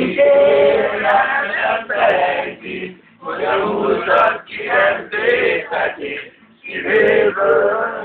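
A man singing a Hungarian graduation song loudly, in long sung phrases broken by short pauses.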